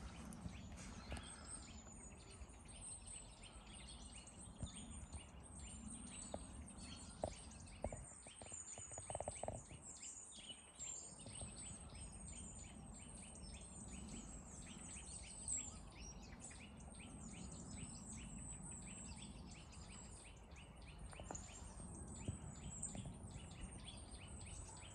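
Faint outdoor ambience: small birds chirping over a steady low background hum.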